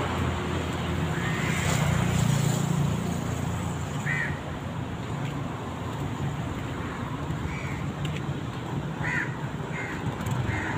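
Street traffic: a car drives past in the first few seconds, then a steady traffic hum with five short, high calls in the second half.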